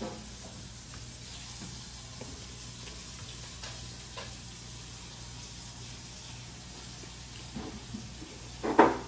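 Steady hiss with faint scattered clicks of people eating at a table, and one short, loud clatter near the end.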